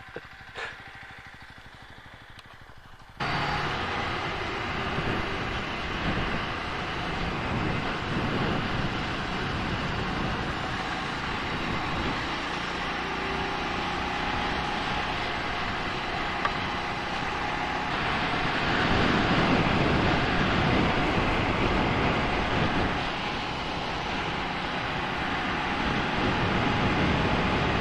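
Ducati Scrambler Sixty2's 399 cc air-cooled L-twin heard while riding at road speed, mixed with a steady rush of wind over the microphone. It starts abruptly about three seconds in, after a few quiet seconds, and swells a little in the second half.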